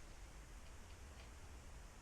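Near silence: faint room hum with a few faint, light ticks about a second in.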